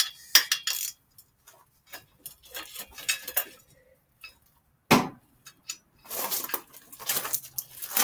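Metal tools clinking and knocking against each other and a hard surface as they are handled, in scattered short clicks, with one sharp knock about five seconds in.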